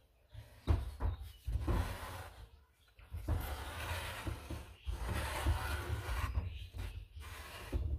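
A small white board router shelf, holding a router and an ONU, is handled on a wooden tabletop: irregular rubbing and scraping as it slides and is tilted, with a few dull knocks.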